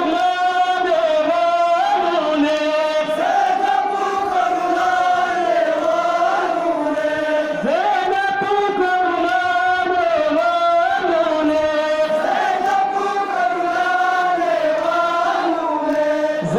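Voices chanting a Muharram lament (noha) in long, wavering held notes, the melody rising and falling in phrases of a few seconds each.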